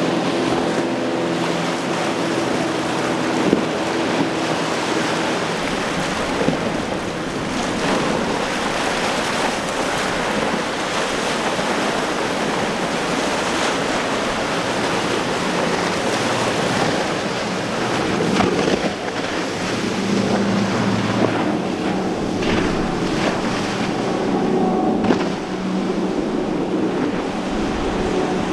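Boat engines running through breaking inlet waves, over a constant wash of rushing, splashing water. A steady engine drone stands out at the start and again from about twenty seconds in.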